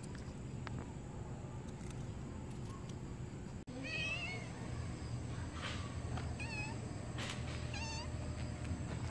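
Black-and-white cat meowing three times: a long wavering meow about four seconds in, then two shorter meows a few seconds later, over a steady low hum.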